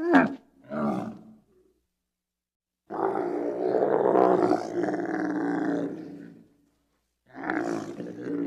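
Creature roar sound effects pieced together from animal calls. Two short growling calls come first, then a long roar of about three and a half seconds, then another roar that starts near the end.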